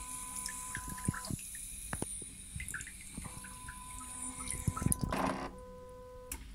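Toilet-seat bidet nozzle spraying water into the bowl: a steady hiss with drips and splashes, a short louder rush of water about five seconds in, and a faint steady tone that stops and starts.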